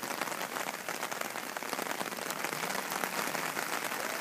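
Rain falling on flooded street water: a steady, dense patter of drops.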